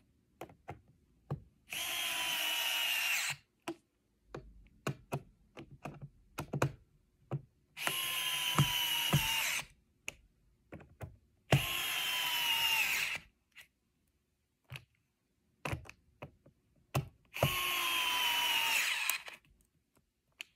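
Cordless electric screwdriver driving screws into the underside of a Roomba 675 robot vacuum: four runs of motor whine of about a second and a half each, dipping slightly in pitch, with small clicks and taps of handling between them.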